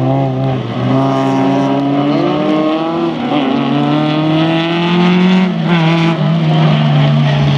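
Rallycross car engines running at high revs. The pitch climbs as they accelerate and drops sharply about three seconds in and again between five and six seconds, at the gear changes.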